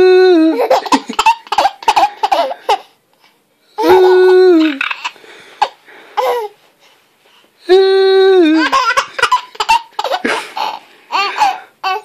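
Baby laughing in fits of giggles and belly laughs, set off by a repeated odd noise: three times, a held note about a second long that drops in pitch at its end, each followed by a burst of the baby's laughter.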